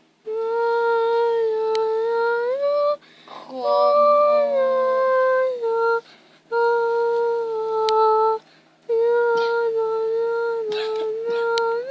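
A child humming a slow tune in long held notes that step between pitches, in four phrases with short breaks between them.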